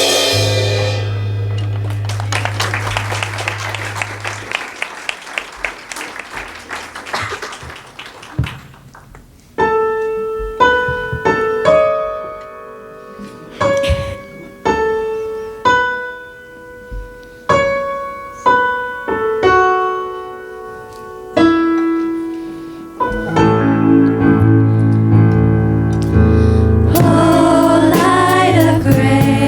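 Live worship-band music. A held chord dies away, a piano plays a slow passage of separate chords, and about 23 s in the full band comes back in with bass. Near the end a quick ticking cymbal and voices join.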